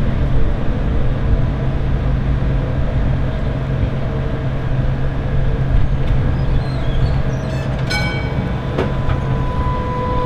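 Standing B2-class articulated tram with its on-board equipment humming steadily. About eight seconds in comes a short ringing ding, and a steady high tone starts near the end.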